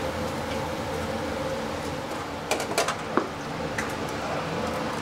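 A few quick clinks of a metal utensil against a plate, about two and a half to three seconds in, as falafel is served, over a steady kitchen hum.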